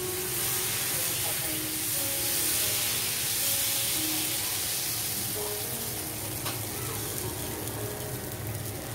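Dosa batter sizzling on a hot iron tawa as it is ladled on and spread in a spiral with the back of the ladle. The hiss swells over the first couple of seconds, then slowly eases off.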